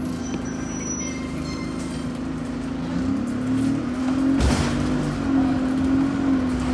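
Bus engine and drivetrain running, heard from inside the passenger saloon while the bus is moving. The engine note rises and gets louder about halfway through, and there is a single knock a little later.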